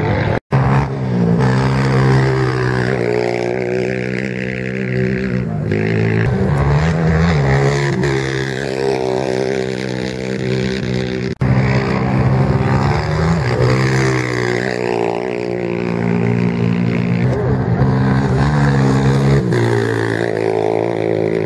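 Racing quad (ATV) engines revving and climbing in pitch again and again as riders accelerate away through the gears, one after another. The sound cuts out briefly twice.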